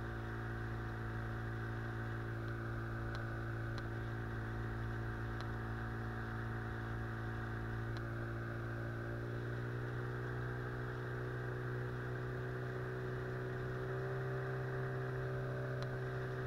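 Outboard motor of a small river boat running steadily under way, its pitch rising slightly in the second half.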